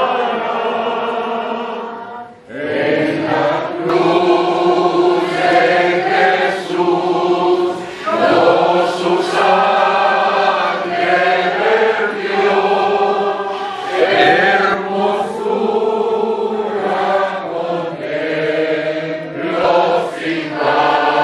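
Congregation of men and women singing a hymn together, holding long notes in slow phrases with short breaks between lines.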